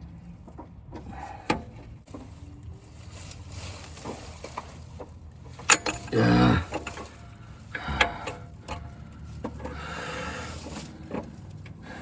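Hand tools knocking and clinking on metal parts during a repair, with a short strained grunt about six seconds in.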